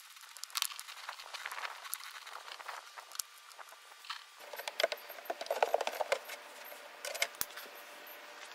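Handling noises inside a blast cabinet: a plastic air hose and its fittings shifted and rustled over loose blasting grit, then a run of metallic clattering about halfway through as the expanded-metal grate is laid back into the cabinet.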